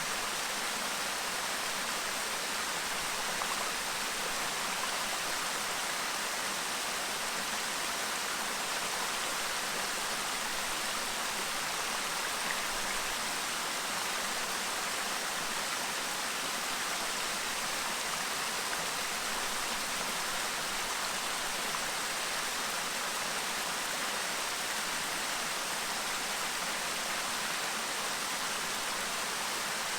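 A clear stream babbling and rushing steadily over rocks, as an even wash of water noise.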